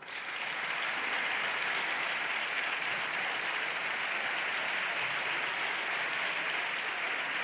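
Members of parliament applauding in a large chamber, greeting the proclamation of a newly elected Speaker. The clapping swells at once and holds even.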